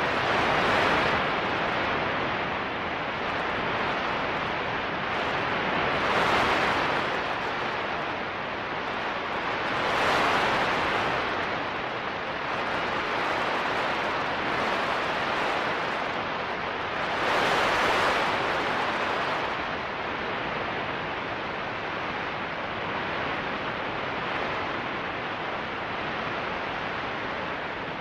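Radio static from a receiver picking up the Sun's radio emission during an M8.4 solar flare: a steady hiss that swells louder four times, the longest surge about two-thirds of the way through.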